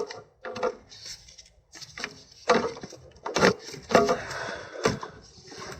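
Irregular knocks, clicks and scraping of metal parts and hand tools being handled and fitted back together on a car's gearbox actuator assembly. The sharpest knocks come in a cluster past the middle.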